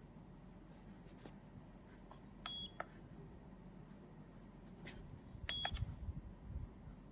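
Kodak Mini Shot 3 Retro instant camera being operated: two short high electronic beeps about three seconds apart, each with small button clicks around it, and faint handling knocks.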